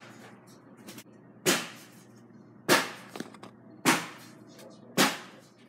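Four sharp knocks, evenly spaced a little over a second apart, each dying away quickly, over a faint low hum.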